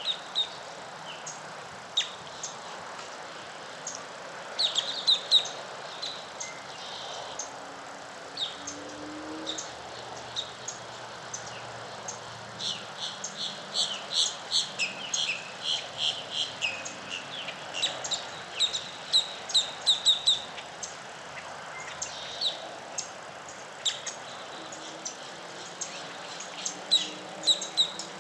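Birds chirping at dawn: many short, high, quick chirps and calls coming in clusters over a steady background hiss.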